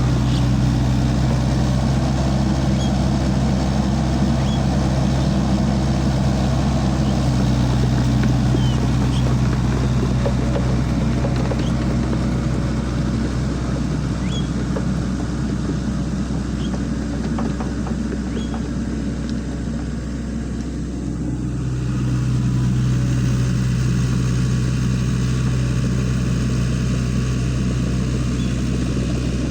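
Sany SY55C mini excavator's diesel engine running steadily under working load, with faint light ticks over it; the engine note eases off about twenty seconds in and picks back up a second or two later.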